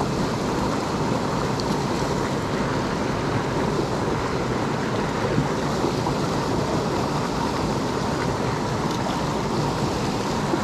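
Steady rushing of a small creek's water, a constant even noise without a break.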